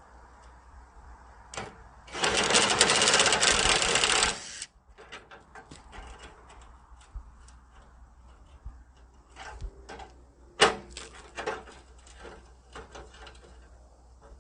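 A rapid mechanical chatter about two seconds in, lasting about two seconds, as a tool works on a radiator support bolt, followed by scattered metal clicks and clinks of tools.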